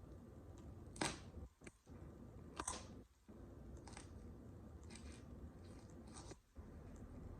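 Vegetables crunching and cracking under high-heel boots: two sharp crunches about a second and a half apart, then a few fainter crackles.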